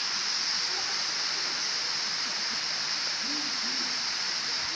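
Steady rush of fast water flowing down a wide concrete channel, with faint voices in the background about three seconds in.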